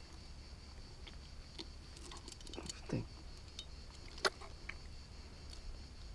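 Small metallic clicks and scrapes of pliers working inside a wels catfish's mouth to free a deeply swallowed frog lure, with one sharp click about four seconds in.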